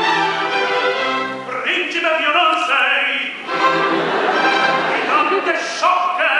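Male opera voices singing with an orchestra accompanying.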